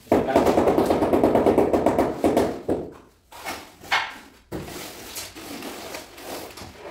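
Trowel scraping and spreading tile adhesive on a tiled floor, a dense rough scraping that is loudest for the first two and a half seconds, then a few short scrapes and quieter rubbing.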